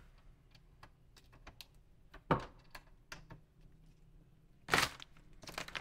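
Light plastic clicks and taps from ink bottles and tank caps being handled while the tanks of an Epson EcoTank printer are filled. Two short, louder rustles stand out, about two seconds in and near five seconds in.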